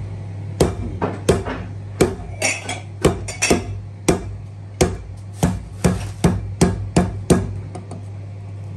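A kitchen knife chopping repeatedly into a hard-shelled tabon-tabon fruit on a stone counter to split it in half: a run of sharp knocks, irregular at roughly two a second, stopping about seven seconds in. A steady low hum runs underneath.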